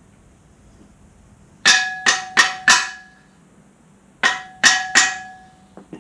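Hammer blows ringing on the steel of a backhoe quick-connect coupler: four quick strikes about a third of a second apart, then three more after a pause of about a second and a half. The blows knock the parts into place.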